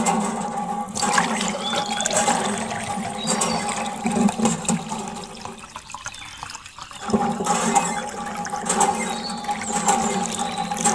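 Water gushing from a miniature hand pump's hose and splashing into a small pool as the pump handle is worked, with a steady hum underneath. It eases off briefly a little past the middle.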